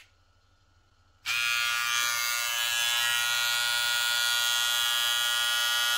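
Wahl Cordless Detailer hair trimmer switched off, then switched back on about a second later with one touch, its motor and blade running with a steady buzz.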